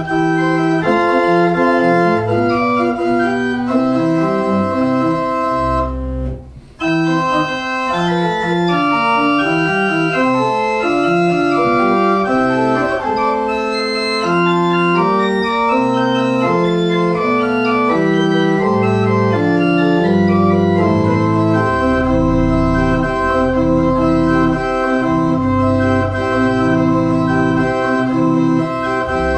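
Residence pipe organ playing a piece with several lines moving in short notes. The sound breaks off briefly about six seconds in, then resumes, and deep bass notes come in about two thirds of the way through.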